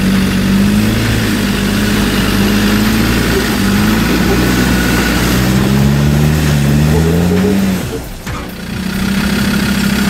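Land Rover Discovery 2's engine revving under load as the 4x4 crawls through a rocky rut, its pitch wavering and climbing. Near the end the revs drop off suddenly, then the engine picks up again.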